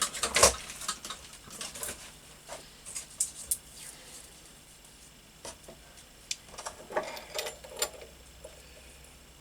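Scattered clicks, taps and light rustling from small parts and wires being handled at a workbench, with a louder knock about half a second in.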